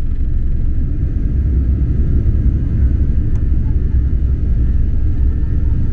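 Jet airliner cabin noise on departure: a steady, loud low rumble of the engines and rushing air, heard from inside the passenger cabin.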